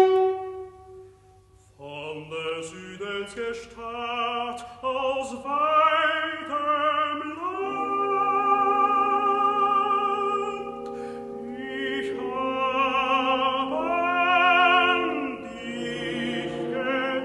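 Operatic tenor singing with a wide vibrato, accompanied by orchestra. The voice comes in about two seconds in, after a short hush.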